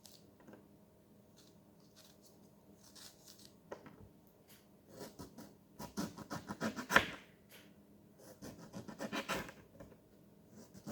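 A lemon being peeled: short scratching and tearing strokes on the rind, a few faint ones at first, then busy clusters about five to seven seconds in, the loudest just before seven seconds, and another run near nine seconds.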